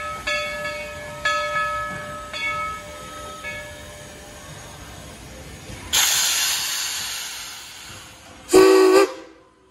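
Steam locomotive No. 70's bell ringing about once a second, then falling silent. About six seconds in, a burst of steam hiss dies away over a couple of seconds. Near the end comes one short, loud blast on the steam whistle.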